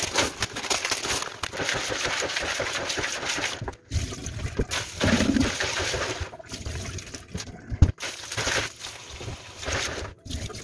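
Tap water running into a plastic basin in a sink while hands swish and rub dried small red beans in the water to wash them before soaking. The running water breaks off briefly a few times.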